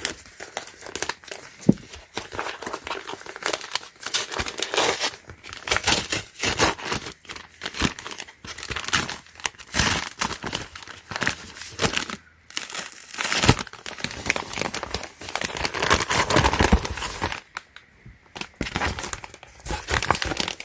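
Packaging of a tire patch repair kit being torn open and crinkled by hand: an irregular run of crackles and rips with a couple of brief pauses.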